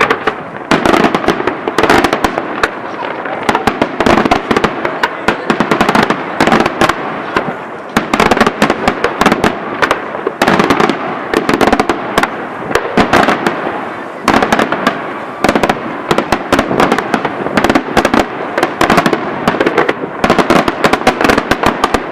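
Daytime aerial fireworks shells bursting in rapid, continuous salvos: sharp bangs and crackling reports following closely on one another, with echoes filling the gaps between them.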